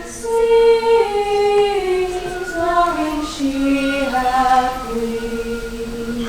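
Treble choir of sopranos and altos singing unaccompanied in several overlapping parts of a round. The lines step downward and settle into held notes over the last second or so.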